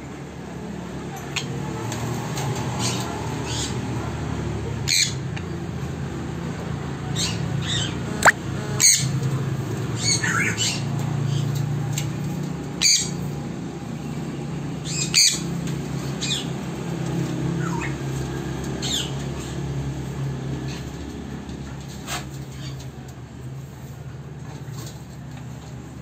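Sun conures giving short, sharp squawks, a dozen or so scattered through, some falling in pitch, over a steady low hum.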